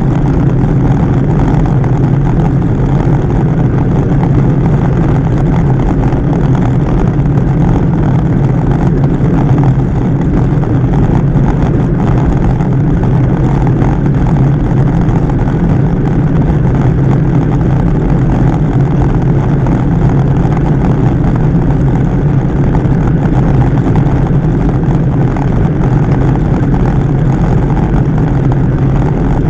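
Steady, loud rush of wind over a bicycle-mounted camera's microphone at about 35 km/h, mixed with the road bike's tyre noise on the asphalt.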